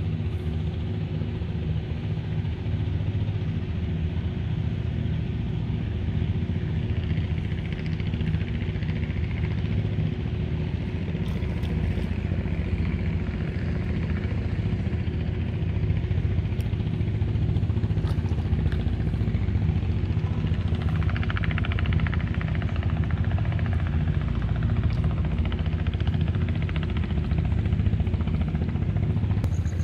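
An engine running steadily, a low hum that holds the same pitch throughout.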